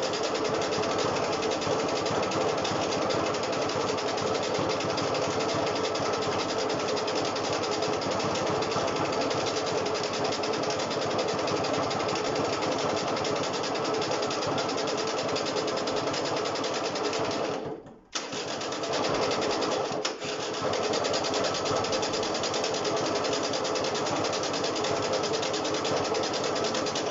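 Honda SH50 scooter's small two-stroke engine running steadily. About two-thirds of the way through it nearly cuts out and picks straight back up, then it stops near the end. The owner says it isn't doing much and isn't making what it did before.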